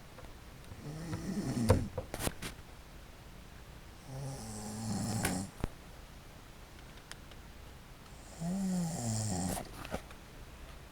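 A passed-out woman snoring heavily: three long snores roughly four seconds apart, each a rough, pitched rattle. A few sharp clicks come around the first snore.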